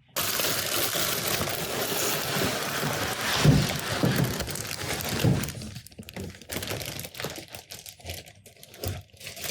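Cardboard box packaging rustling and scraping as the 3D printer is pulled out of it, a dense steady rustle with a few dull thumps. After about five seconds it thins to scattered small clicks and rustles.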